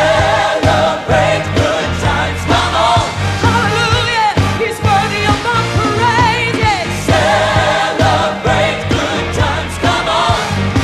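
Upbeat gospel song: a solo singer with vibrato and a choir over bass and drums with a steady beat.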